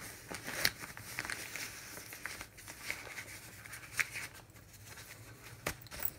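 Hands handling a small container and its wrapping: light irregular rustling with scattered small clicks and taps, the sharpest about four seconds in.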